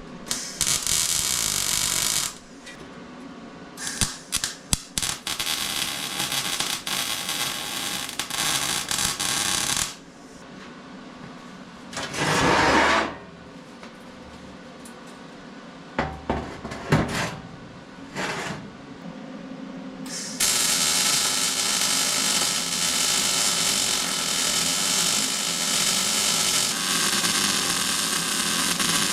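Metalworking on a steel box: a power tool or welder runs in spells of a few seconds with short breaks between them, each spell starting with sharp crackles. The longest spell begins about twenty seconds in.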